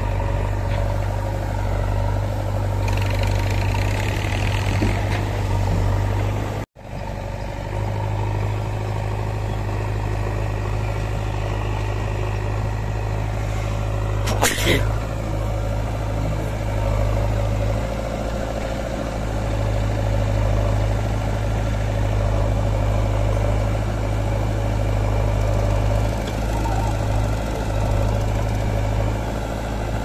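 Diesel engine of a JCB 3DX backhoe loader running steadily as it loads soil. The sound cuts out for a moment about a third of the way in, and there is a single sharp knock about halfway through.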